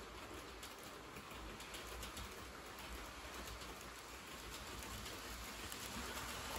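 Model electric train rolling along the layout's track: a steady rushing with faint ticking of the wheels over the rails, growing gradually louder as it approaches.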